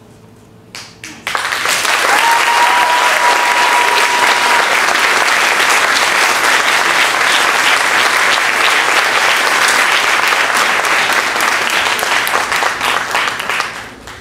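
Audience applause. It starts with a few single claps about a second in, swells at once into full clapping that holds steady, and dies away near the end.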